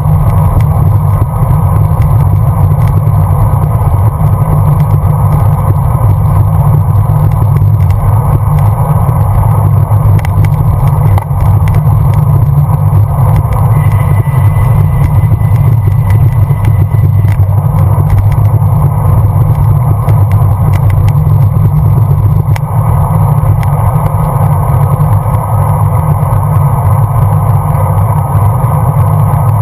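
Loud, steady wind rumble on the microphone of a GoPro camera carried on a moving bicycle, mixed with road noise. A faint high whine sounds for about three seconds midway.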